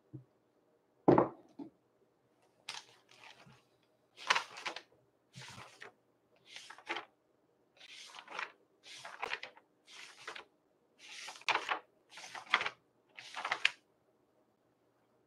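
A thump, then about ten short papery rustles, roughly one a second: the pages of a book being turned one after another, as when leafing through to find a passage.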